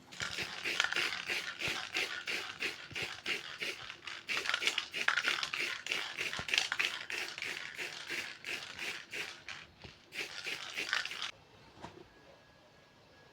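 Aerosol spray-paint can being shaken, its mixing ball rattling in a fast, even rhythm of about five strokes a second, stopping about 11 seconds in.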